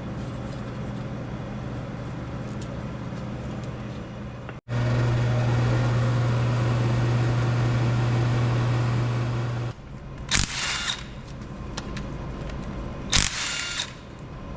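Steady low machine hum, then two short bursts of a handheld power tool a few seconds apart, undoing bolts on the engine's pump housing.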